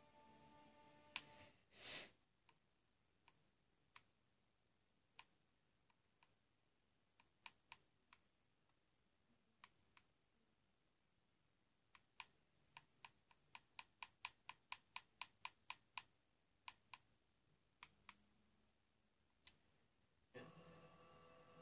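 Sharp plastic clicks of remote-control buttons being pressed to seek through a streaming episode: scattered single presses, then a quick run of about a dozen presses at roughly three a second. The TV programme's sound cuts out in the first two seconds and comes back near the end.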